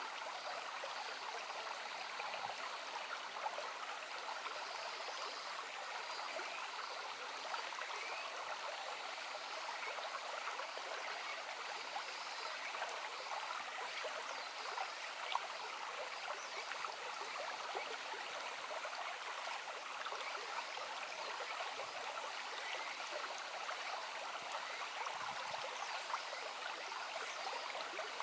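Shallow stream burbling steadily over stones, with many small splashes and gurgles and now and then a louder splash.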